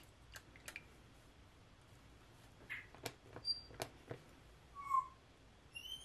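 Light clicks and taps as plastic paint cups and a paintbrush are handled on the work table, then a few short high chirps, the loudest about five seconds in.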